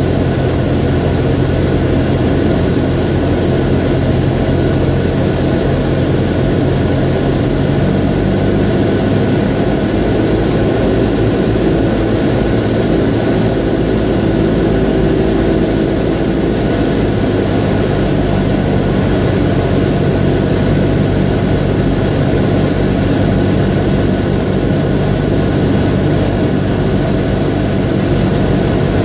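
Single-engine propeller airplane's engine and propeller running steadily, heard inside the cockpit on approach to landing. The engine note shifts about eight seconds in and again around seventeen seconds.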